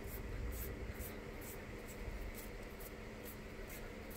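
A hand rubbing and pressing down new flooring laid on contact cement, to push out the air bubbles: a faint swishing, about two strokes a second.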